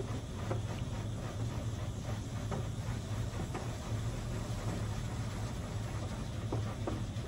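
HydroSpray Rainmaker touch-free car wash spraying water over the car, heard from inside the cabin: a steady hiss and patter of spray on the body and glass over a constant low hum.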